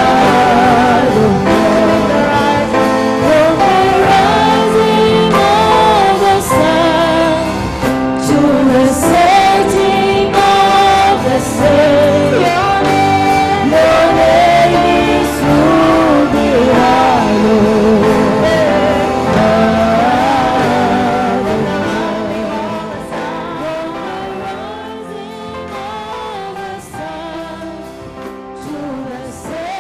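Live gospel praise song: a woman leading the singing, with backing vocalists over keyboard and drums. The music fades down over the last several seconds.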